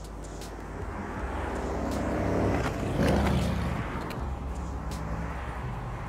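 A road vehicle, most likely a car, passing by: its noise swells to a peak about halfway through and then fades away.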